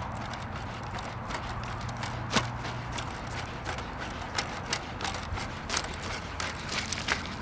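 Spot robot dog's feet striking dry ground and pebbles as it walks: a run of irregular sharp clicks and crunches, more frequent in the second half. A steady low hum underneath weakens about three seconds in.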